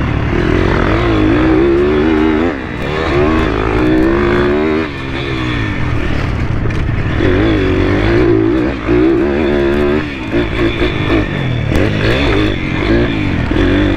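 150 cc pit bike engine revving hard under load while ridden. The engine note climbs and falls with the throttle, with brief drops a few times where the throttle is rolled off or a gear is changed.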